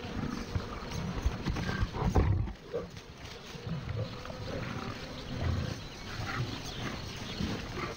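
Lions growling in repeated low bursts as they feed at a buffalo carcass, the loudest about two seconds in.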